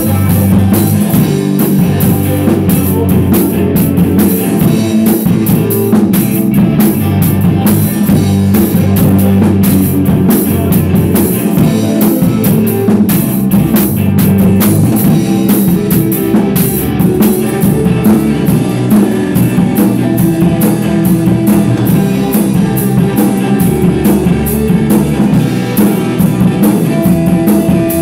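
A rock band rehearsing live: a drum kit played hard, with fast, steady cymbal strikes, under sustained electric guitar chords. The drums are loudest, heard from right beside the kit.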